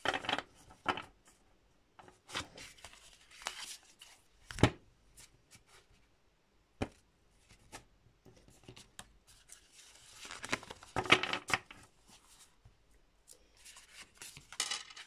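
Tarot cards being shuffled and dealt onto a glass tabletop: bursts of riffling, sliding card noise, with a few sharp taps as cards or the deck hit the glass.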